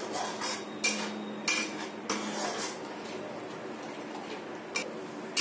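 A metal spatula scraping and knocking against a metal kadhai while stirring vermicelli in milk, with several sharp clinks of metal on metal.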